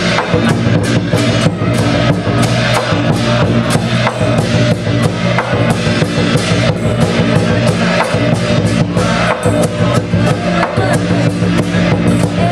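Chinese dragon dance percussion: a big drum beating a loud, steady rhythm with clashing cymbals.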